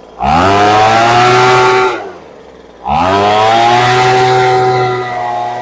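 Poulan Pro leaf blower's small two-stroke engine idling, then revved up to full throttle twice, each time held for about two seconds before dropping back. The owner says the engine is running a little rich and needs its high-speed mixture screw turned in.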